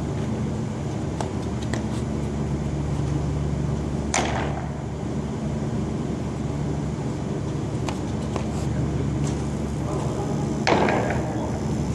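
Two sharp smacks of a baseball meeting a leather glove during fielding practice, about four seconds in and near the end, each ringing on in a long echo in a big hollow hall, over a steady ventilation hum.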